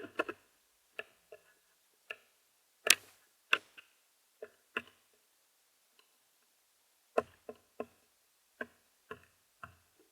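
Birds pecking and tapping on a plastic Bird Buddy feeder: irregular sharp, hollow-sounding taps, a dozen or more, with the loudest a few seconds in.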